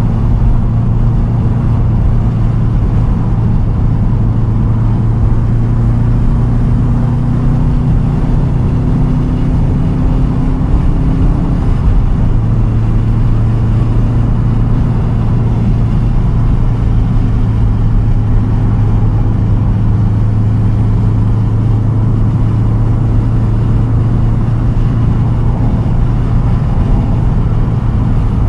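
2010 Subaru WRX STI's turbocharged 2.5-litre flat-four, through a titanium single straight-pipe exhaust, running steadily at cruising revs under way. Its note shifts slightly about twelve seconds in.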